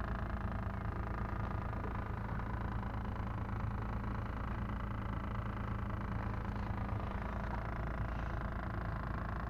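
Ship's engine running steadily, a low, even drone that holds constant throughout.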